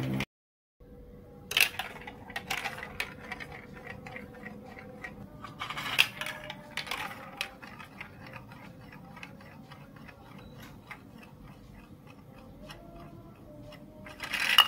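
A plastic marble rolling through a plastic marble run, clacking against the track pieces, then circling a plastic funnel bowl with a fast stream of small ticks and dropping through its hole with a loud clatter near the end. A faint steady hum runs underneath.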